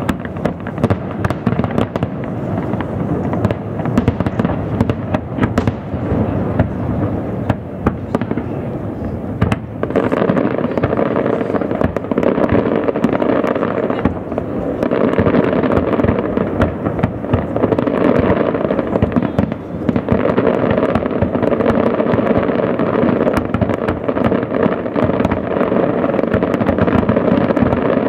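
Fireworks display: aerial shells bursting one after another in a continuous rapid string of bangs and crackle, growing denser about ten seconds in.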